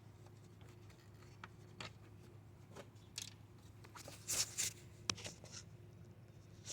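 Faint, scattered clicks and short scrapes of hand tools and metal parts being handled while nuts are taken off, over a low steady hum. The clearest scrapes come about four seconds in, followed by a sharp click.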